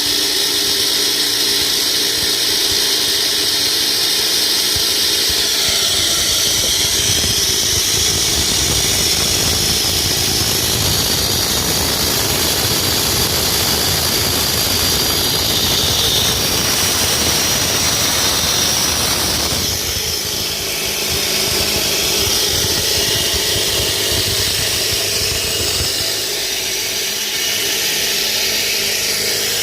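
Concrete cutting saw with a diamond blade running and cutting through a concrete slab: a steady loud motor whine with a grinding hiss. From about 6 s to 20 s in, the grinding noise thickens, then eases back toward the steadier run.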